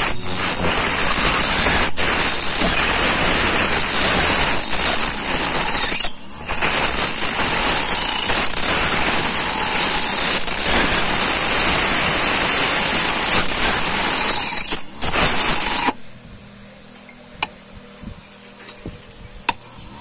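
Homemade key cutting machine's small 12-volt DC motor driving a cutting wheel through a brass key blank: a loud grinding with a high, wavering whine as the key is fed along. The noise cuts off abruptly about three-quarters of the way in, leaving a faint hum and a few clicks; the maker says straight after that it had got stuck.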